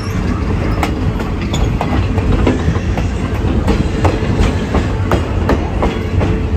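Passenger railcar rolling along the track, heard from beside the coupler between two cars: a steady low rumble with irregular sharp clicks and clanks, about two or three a second, a clickety-clack from the wheels and running gear.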